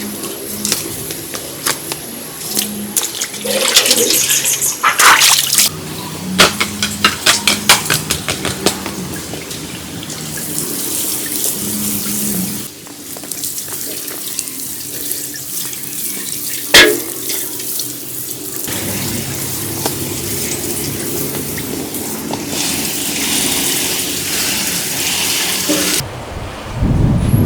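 Running and splashing water, with clatters and knocks of things being handled in and around it.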